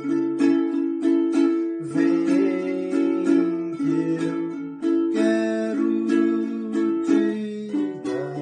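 Ukulele with a body made from a colomba pascal cake tin and a mahogany top, strummed in a steady rhythm through a series of chord changes.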